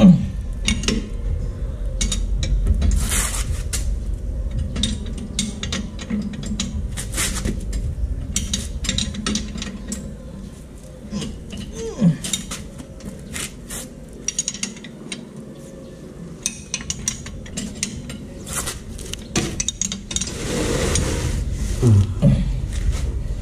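Metal hand tools and parts clinking and clicking, many scattered sharp clicks, during work on a vehicle's differential.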